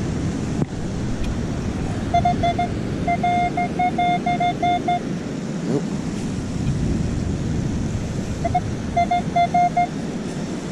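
Minelab Equinox metal detector sounding a run of short, same-pitched beeps, then a second run near the end, as it passes over a target it reads as a possible dime. Ocean surf and wind hiss run underneath.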